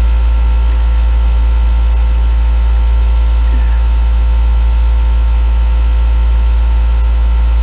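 Loud, steady, low electrical hum with a few faint steady higher tones above it, and no other sound.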